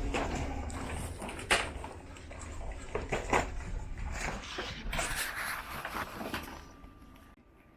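Irregular clicks, knocks and rustling of objects being handled, dying away near the end.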